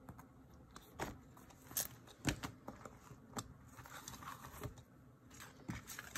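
Scattered light clicks and soft paper rustling as hands handle a ring planner's metal binder rings and turn the paper inserts on them.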